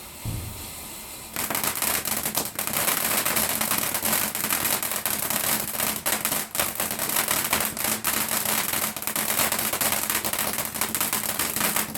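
Firework crackling: a dense, rapid string of small cracks that starts about a second in and keeps going.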